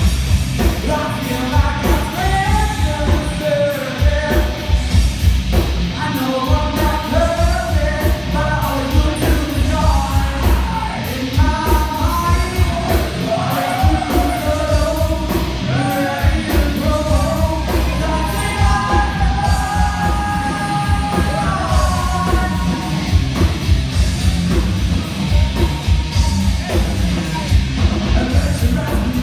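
A rock band playing live, loud, with a vocalist singing and shouting over pounding drums and heavy bass.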